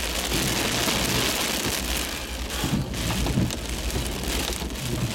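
Heavy monsoon rain and strong wind: a steady rush of noise, with wind noise churning low down.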